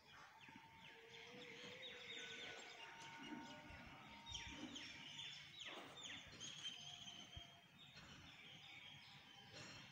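Birds chirping faintly: many quick down-slurred chirps mixed with a few short held whistled notes.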